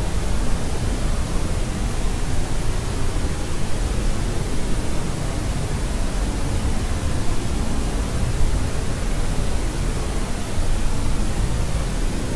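Steady baby-sleep white noise, an even, unbroken hiss weighted toward the low end so it sounds deep rather than bright.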